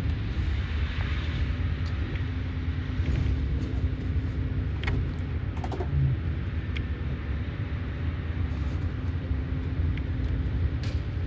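Highway coach running, heard from inside the passenger cabin: a steady low engine and road rumble with a faint steady hum and a few light clicks and rattles.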